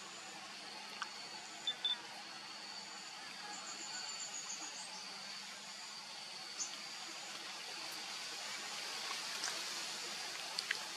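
Quiet outdoor ambience: a steady hiss with a thin, high, steady tone, a short run of high chirps about four seconds in, and a few light clicks.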